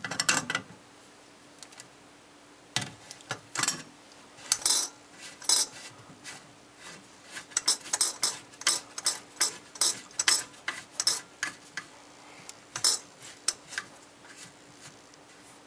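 Channel-lock pliers clicking and scraping on a chrome sink-drain slip nut as the joint is loosened, then the nut clicking on its threads as it is turned by hand. The sound is a run of sharp metallic clicks and clinks in irregular clusters.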